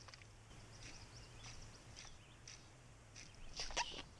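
A hooked fish splashing and thrashing at the water's surface near the end, the loudest sound here. Before it there is only a faint outdoor background with a few short high chirps.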